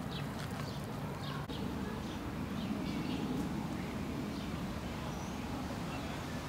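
Small birds chirping in short, repeated calls over a steady low background rumble.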